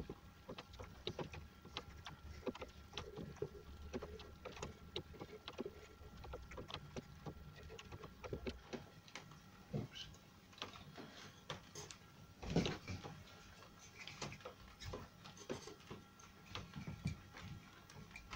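Scattered light clicks and knocks as kerfed plywood is handled and Irwin one-handed bar clamps are fitted and squeezed tight, with one louder knock about twelve seconds in.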